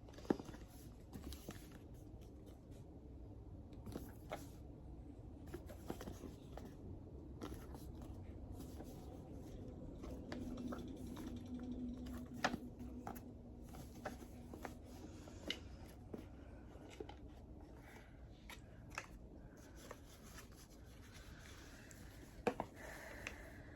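Faint handling sounds of a tarot deck and its packaging: soft rustling with scattered light clicks and taps, a sharper tap near the start and another near the end.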